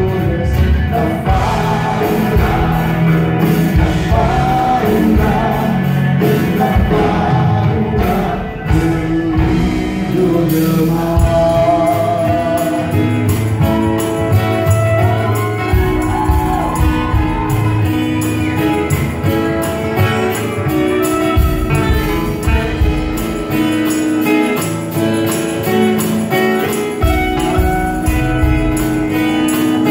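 Live acoustic rock band playing: strummed acoustic guitars, keyboard and drums, with a melodic lead line over them.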